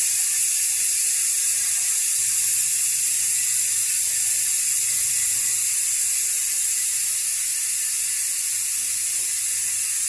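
Aeroic AM 9.5 six-pawl rear hub freewheeling on a bicycle wheel, its pawls clicking so fast they make a steady, loud buzz.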